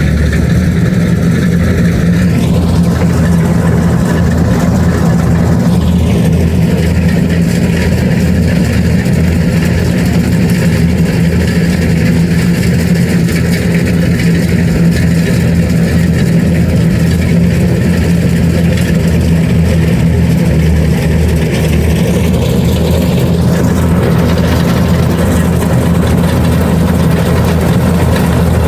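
Kubota DC-70 Plus rice combine harvester running at a loud, steady engine drone while harvesting. Its higher-pitched machine noise shifts about two seconds in and again near the end.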